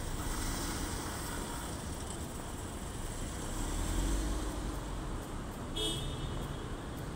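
Light street traffic: a vehicle passes with a low rumble about midway, and a single brief horn toot sounds near the end, over a steady city hum.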